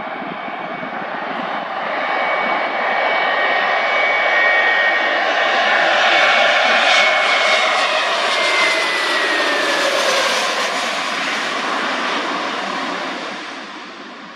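Airbus A320neo jet engines passing by: the engine noise builds, peaks about halfway, then fades, and a whining tone drops in pitch as the aircraft goes past.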